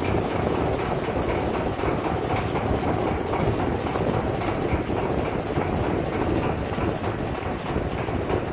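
Steady rumble of a fishing boat at sea: engine noise mixed with wind and water.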